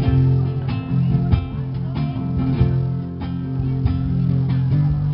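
Live acoustic band music with no singing: strummed acoustic guitar over sustained low bass notes, in a regular rhythm.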